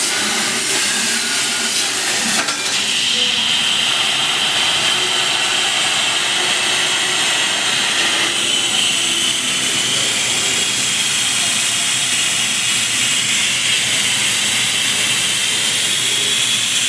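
CNC plasma torch cutting a metal pipe: a loud, steady hiss of the plasma arc and its air jet, with a steady higher-pitched whine joining about two and a half seconds in.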